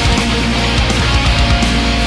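Rock music with electric guitar and a steady bass.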